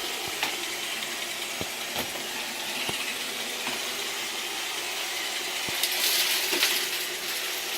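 iRobot Roomba 680 robot vacuum running on a bare floor: a steady whirring hiss from its motor and brushes, with scattered sharp clicks and rattles as it picks up grit and debris. It gets louder for a moment about six seconds in.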